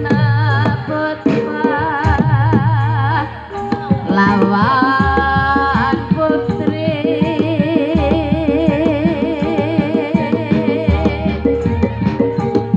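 Live Javanese gamelan accompaniment for a Buto Gedruk trance dance: a singer with a strong, wavering vibrato over held metallophone tones and a steady patter of drum strokes.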